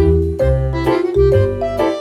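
Background music: an upbeat piano-led instrumental with a bass line, notes changing about twice a second.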